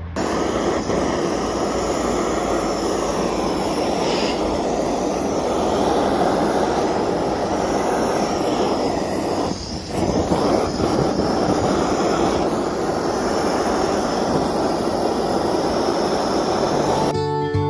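Propane torch flame burning over carved wood, a steady loud rushing hiss that dips briefly about ten seconds in. Music comes in near the end.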